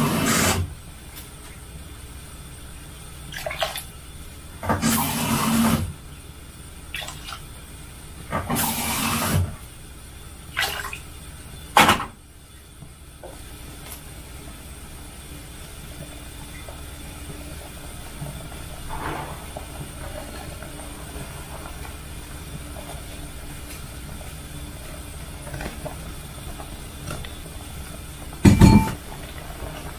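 Kitchen cooking sounds. A few short bursts of running or pouring water come in the first twelve seconds. Then a steady low hiss of a pot heating slowly grows, broken by one sharp knock near the end.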